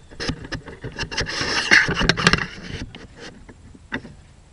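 Rubbing and scraping with many small clicks, the loudest stretch about two seconds in, then a few scattered clicks as it dies away.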